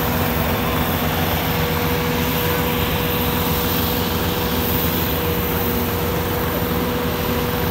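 Diesel engines of a Sonalika DI 60 and an Indo Farm tractor running steadily while chained back to back before a tug-of-war pull. There is a low rumble with a constant tone running over it, and no revving.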